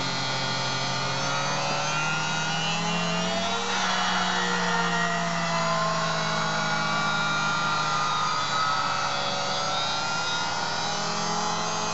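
Auto lens groover running, its small grooving wheel cutting a groove into the edge of an eyeglass lens as the lens slowly turns in the chuck. The motor gives a steady hum, and the whine slowly rises and falls in pitch as the lens edge passes the wheel.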